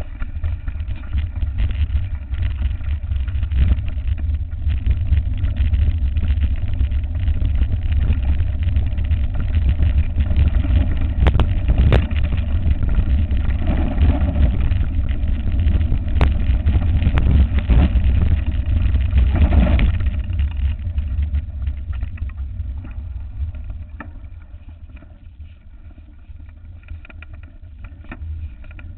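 Wind rumbling on a mountain bike's camera microphone while the bike rides fast over rough ground, with rattling and a few sharp knocks from the bike over bumps. The noise drops off about two-thirds of the way through as the bike slows.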